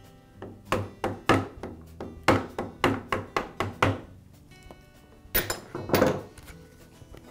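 A rubber mallet strikes the handle of a screwdriver in quick knocks, about a dozen in two runs, driving the lock lever out of a plastic lawn mower mulch door. A couple of louder clattering knocks follow about five to six seconds in, and faint background music runs underneath.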